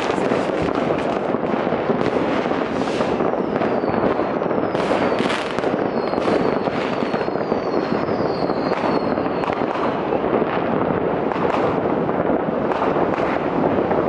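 Distant fireworks going off all over a city: a dense, unbroken crackle of firecrackers and bangs. In the middle there are several short whistles that fall in pitch, from whistling fireworks.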